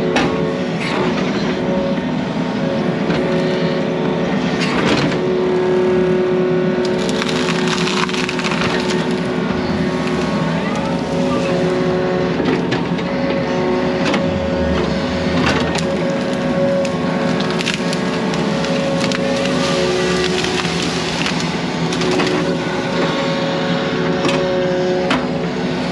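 Yanmar mini excavator's diesel engine running steadily, with engine tones that come and go as the hydraulics take load. Scattered knocks and scrapes come from the machine working dirt.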